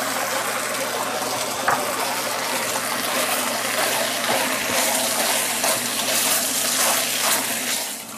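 Soy-and-mushroom sauce with cornstarch sizzling as it is poured into a hot pot of browned textured vegetable protein, ginger and oil, with a spatula stirring through it. The steady sizzle drops away sharply near the end.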